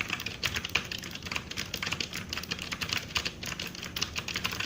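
Rexus Legionare MX8 mechanical keyboard with optical switches being typed on quickly: a dense, continuous run of key clicks that stops near the end.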